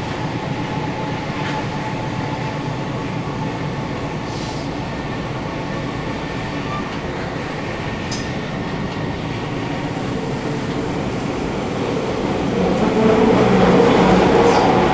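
Inside the cabin of a Sendai Subway 1000N-series train running between stations: a steady rumble of wheels and traction motors, with the air conditioning on. From about twelve seconds in it grows louder, with higher ringing tones joining in.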